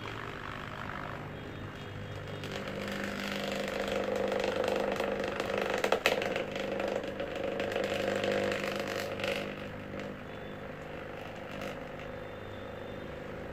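Thermal tattoo stencil copier running, its motor and rollers drawing the printed drawing and thermal stencil paper through in a copy pass: a steady hum that grows louder a few seconds in and drops back about ten seconds in, with a couple of sharp clicks.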